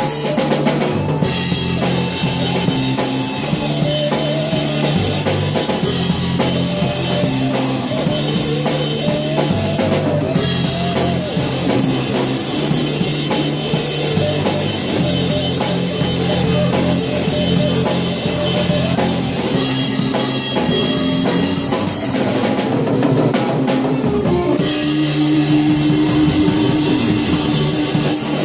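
Rock trio playing with a full drum kit driving a steady beat on bass drum and snare, under bass guitar and a wavering electric guitar or vocal line.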